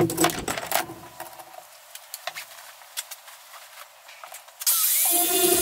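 Clicks and knocks of a DeWalt angle grinder and its disc being handled on a wooden bench. About four and a half seconds in, the angle grinder starts cutting into steel: a loud steady hiss with a wavering whine.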